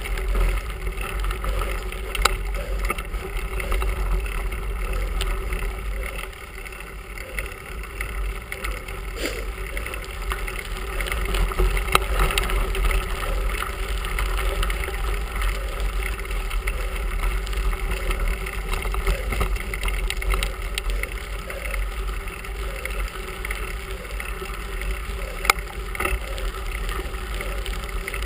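Bicycle riding over a gravel and rock carriageway, heard from a handlebar-mounted camera: a steady rumble of tyres and wind on the microphone, with a few sharp clicks as the bike jolts over stones.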